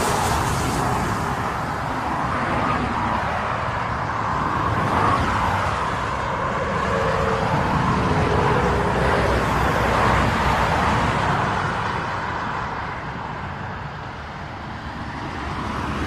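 Cars passing on a highway: steady tyre and engine noise that swells and fades as vehicles go by, dipping briefly near the end.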